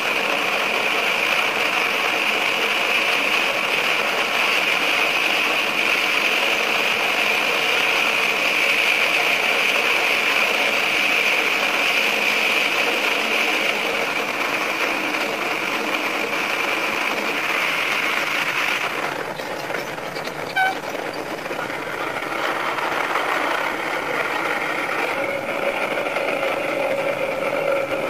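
Diesel railcar running through a tunnel, the steady din of its engine and wheels on the rails heard from the driver's cab and sped up five times. About two-thirds in the noise drops suddenly as the train leaves the tunnel, with a single knock just after. Steady tones come in near the end.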